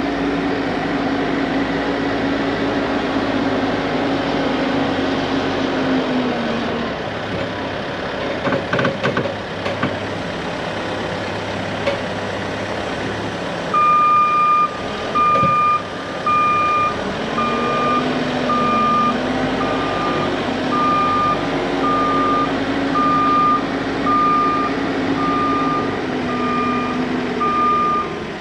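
Engine running, its pitch dropping about a third of the way in and climbing again later. About halfway through, a reversing alarm starts up over it, beeping roughly once a second.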